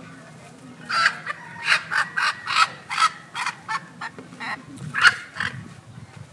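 Poultry squawking: a run of about a dozen short, harsh calls, two or three a second, starting about a second in and ending shortly before the end.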